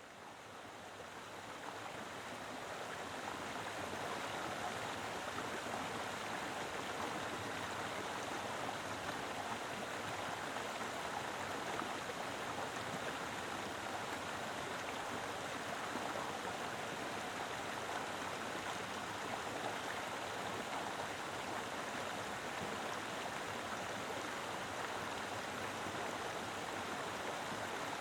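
Mountain river flowing with plenty of water, a steady full rushing that fades in over the first few seconds and then holds even.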